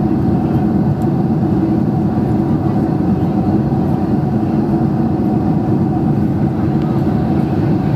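Steady cabin noise of a Boeing 747-400ER in cruise: an even, unbroken rush of engines and airflow heard from a window seat behind the wing.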